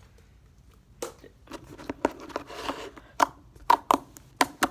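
Slime being squeezed and poked by hand, giving a run of sharp wet pops and clicks with softer squishing between them, the pops coming faster in the second half.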